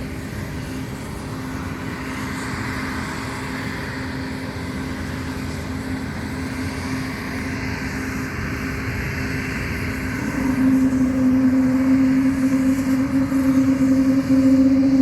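Embraer E195-E2's Pratt & Whitney geared turbofan engines running on the ground: a steady drone under a constant-pitch hum, which grows louder about ten seconds in as the engines spool up.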